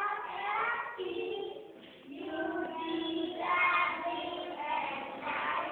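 A class of young children singing together in unison, in held, steady notes, with a short break about two seconds in.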